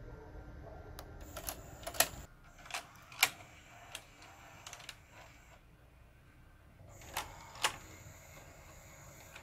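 Bang & Olufsen VX5000 VHS video recorder's tape mechanism at work: a run of sharp mechanical clicks and clunks, loudest about two and three seconds in, with another pair about seven seconds in, over a faint motor whir, as the loaded cassette is threaded for a test play.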